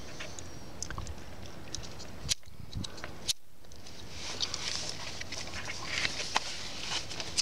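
Scattered light clicks and rustling from hands handling an insulated wire splice, heat-shrink tubing and a butane lighter, over a steady background hiss.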